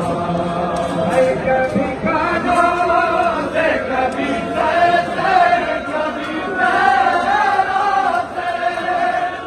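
Men's voices chanting a noha, the Shia mourning lament for Husayn, sung by a large crowd in a loose unison melody.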